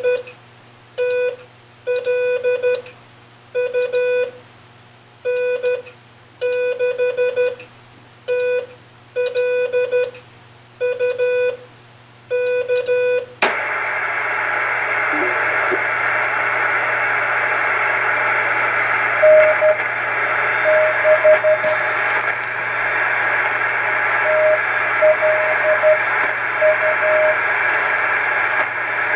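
Morse code keyed on the 40-metre EF Johnson Navigator CW transmitter, heard as a clean single-pitched tone switching on and off in dots and dashes. About 13 seconds in, the sending stops and the station switches to receive: steady band hiss from the Drake 2-C receiver, with faint Morse from another station calling back in the second half.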